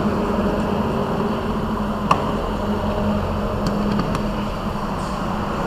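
Steady mechanical hum and hiss, with a few light clicks about two seconds and four seconds in.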